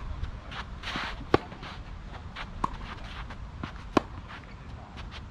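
Tennis ball being hit back and forth on a clay court: three sharp pocks of ball on racket about 1.3 s apart, the loudest about a second in and near the end from the near player, a fainter one between, with shoe scuffs on the clay.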